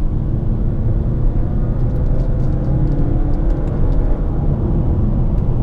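Steady low road and tyre rumble heard from inside the cabin of a 2017 Mazda 6 on the move, with its four-cylinder engine running underneath.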